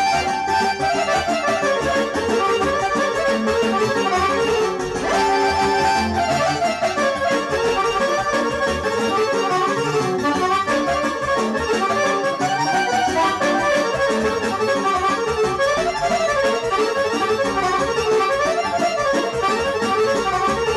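Live band music with an ornamented, accordion-sounding lead melody running over keyboard accompaniment.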